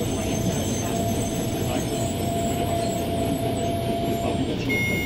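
Old diesel railbus running along the line, heard from inside its driver's cab: a steady rumble of engine and wheels on rail, with a thin steady whine that fades out about four seconds in. A short electronic beep sounds near the end.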